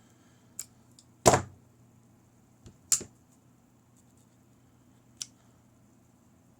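Pliers clicking and knocking while straightening a bobby pin: a handful of short, sharp clicks spread out, the loudest a little over a second in and another about three seconds in.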